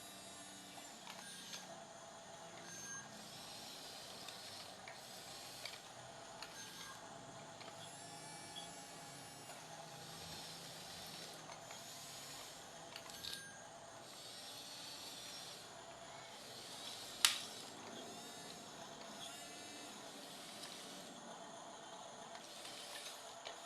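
Faint whirring of a toy bulldozer's small electric motor and gears, with one sharp click a little past the middle.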